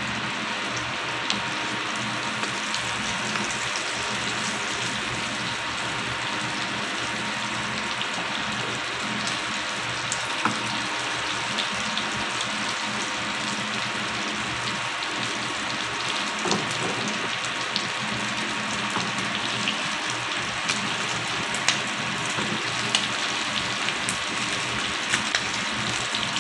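Salmon steaks frying in butter in a pan: a steady sizzle with scattered pops and crackles that come more often near the end.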